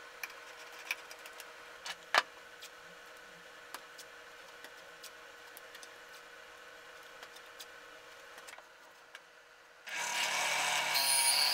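Quiet, scattered clicks and taps of tools being handled, the sharpest about two seconds in. About ten seconds in, a drill press switches on and runs, and its hole saw starts cutting into plywood just before the end.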